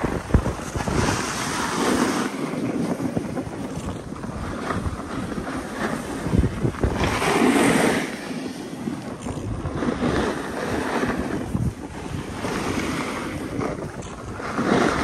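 Wind buffeting the microphone, a rough rushing noise that swells and eases in uneven gusts.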